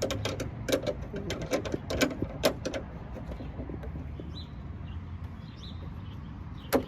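Ratchet wrench clicking in quick, uneven strokes as a 10 mm bolt on a truck door handle is loosened, then a quieter pause with one more click near the end.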